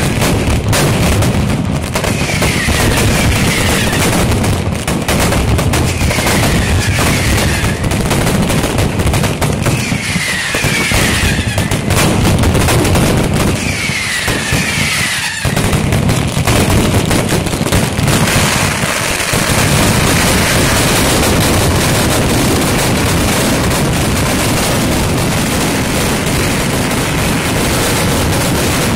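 A Pirotecnia Jurado mascletà: firecrackers strung on lines exploding in a dense, continuous barrage of bangs. In the first half a short high falling whistle recurs about every two seconds, and from about eighteen seconds in the bangs merge into one even, unbroken rattle.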